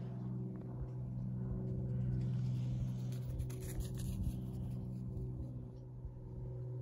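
A steady, low mechanical hum with even overtones, with a few faint clicks around the middle.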